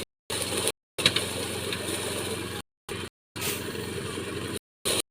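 Engine-driven rice threshing machine running steadily, with a machine hum and rattle of the threshing drum. The sound cuts out to total silence several times for a split second.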